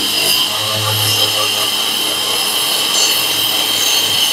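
Boda brushless wall chaser running steadily with a high whine as its blades cut a groove into a wall.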